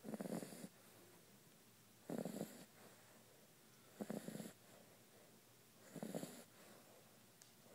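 Six-week-old Shar Pei puppy snoring in its sleep: four short snores in a steady rhythm, about one every two seconds.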